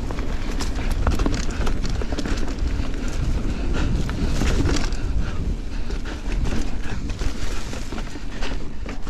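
Giant Trance 29 full-suspension mountain bike ridden fast over dirt singletrack: the tyres rumble over the trail and wind buffets the action camera's microphone. Frequent sharp clicks and rattles come through throughout.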